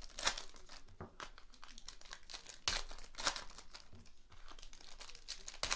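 Foil wrappers of Panini Prizm basketball hobby card packs crinkling and tearing as they are opened by hand. A run of rustles and sharp crackles, the loudest at the start, in the middle and near the end.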